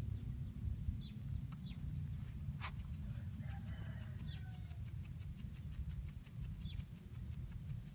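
Rural outdoor ambience: a low rumble with a steady high whine, a few short, high, falling bird chirps, a sharp click about a third of the way in, and a faint chicken cluck near the middle.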